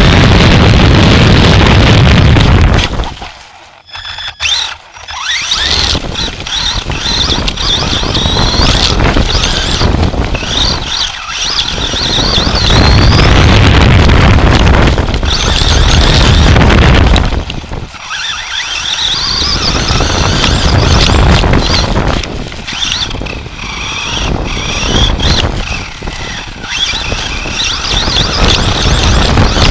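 On-board sound of a Team Associated SC10 radio-control short-course truck driving, its motor and gears whining in a pitch that rises and falls with the throttle, over loud rumbling noise from the chassis and tyres. It drops off briefly about three to five seconds in, then picks up again.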